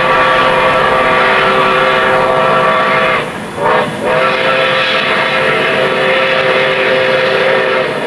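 Steam whistle blowing a chord of several steady tones: a long blast, a short toot just after three seconds in, then another long blast.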